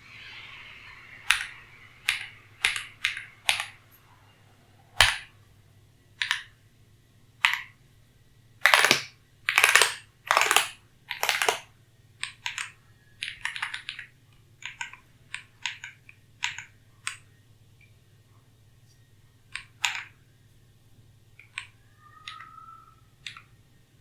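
Keys of an Ajazz AK980 mechanical keyboard pressed one at a time at an irregular pace, each a sharp click, with a louder run of keystrokes about halfway through. A short faint tone sounds near the end.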